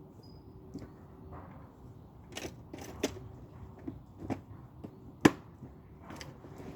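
Scattered clicks and knocks of fishing tackle boxes and gear being handled and packed, the loudest a sharp knock about five seconds in.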